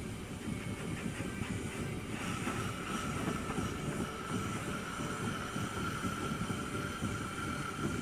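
Oxy-fuel torch flame rushing steadily as it heats an A/C hose fitting for silver brazing, with a steady whistling tone joining about two seconds in.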